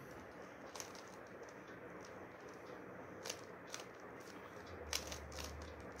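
Plastic Rubik's cube being turned by hand: a few faint, sharp clicks at irregular intervals over quiet room hiss. A low hum comes in near the end.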